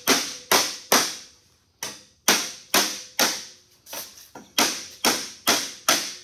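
Rubber mallet striking a 26-gauge galvanized steel sheet, bending a flange up over the edge of a clamped wooden board with light blows a little at a time so as not to dent it. About two blows a second, each ringing briefly in the metal, with a short pause about two seconds in.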